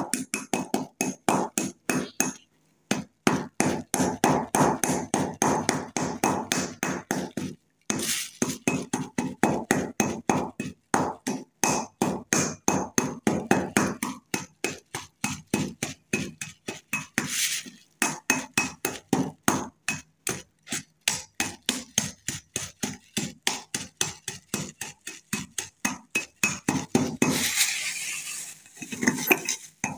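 Pestle grinding and knocking in a kharal (mortar) in quick rhythmic strokes, about three to four a second, crushing lumps of samulfar (white arsenic) and ammonium chloride into a fine powder. The strokes break off briefly twice, about two and a half and seven and a half seconds in.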